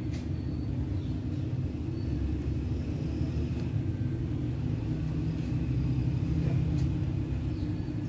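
A steady low rumble with a held hum in it, swelling a few seconds in and easing again near the end, with faint short high chirps over it.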